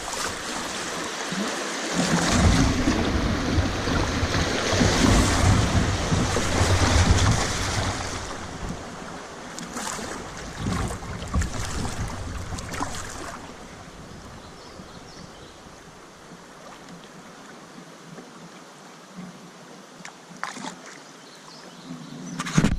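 Water rushing and splashing around a kayak on the river, with wind buffeting the microphone; louder in the first half, then quieter about two-thirds of the way through, with a few brief splashes.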